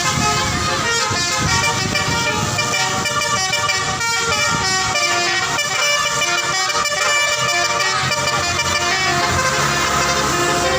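Telolet musical bus horn playing a melody: a continuous run of changing notes, several sounding at once.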